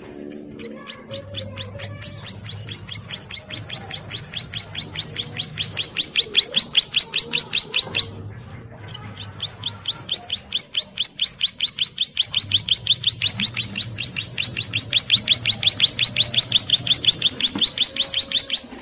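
Ciblek sawah, a small prinia, singing two long rattling trills of rapid repeated high notes, each growing louder toward its end, with a short pause between them about halfway through. This is the fast trill that keepers call 'ngebren'.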